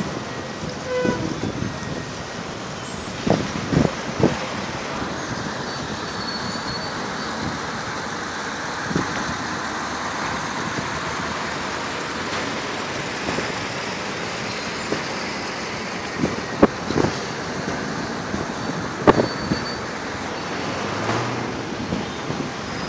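Steady traffic noise on a city street, with a few short sharp knocks: a cluster about three to four seconds in and two more near the end.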